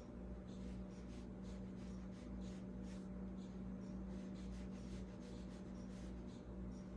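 Paintbrush stroking and dabbing on watercolor paper: soft, brief brushing strokes a few times a second over a steady low hum.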